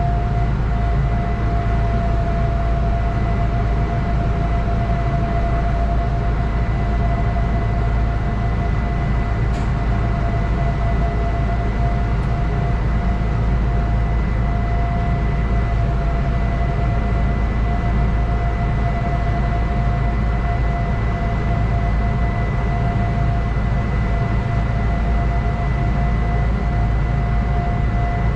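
Steady hum of a stopped narrow-gauge electric train's onboard equipment, heard inside the driver's cab, with a constant whine on top.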